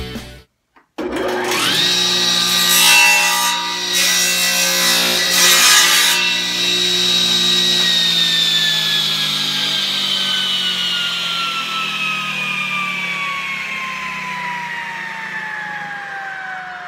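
A power tool's motor winds up to a steady high whine and cuts a chamfer along the edge of a plywood-and-pine vise jaw in a few rough bursts. It is then switched off and its whine falls slowly in pitch as it coasts down.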